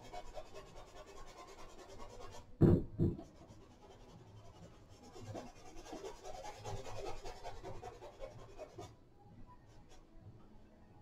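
Paintbrush scratching and rubbing on canvas as thin, watered-down paint is worked into the weave, with a short, loud double thump about three seconds in.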